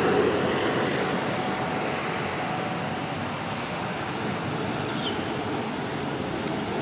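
Steady outdoor background noise with no clear events, and a brief high falling squeak about five seconds in.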